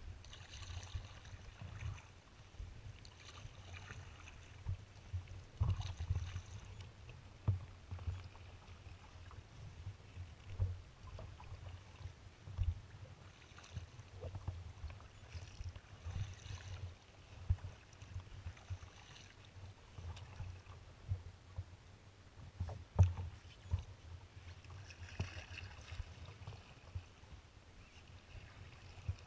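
Sea kayak being paddled through choppy water: paddle strokes splash and swish every few seconds over a low, buffeting rumble. A single sharp knock comes late on.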